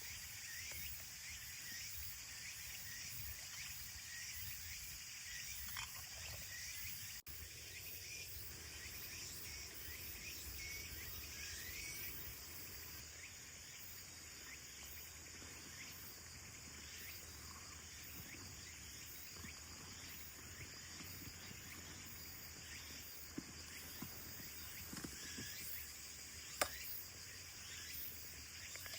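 Steady outdoor insect chorus, a high continuous trilling, with scattered faint clicks and a couple of sharper snaps near the end.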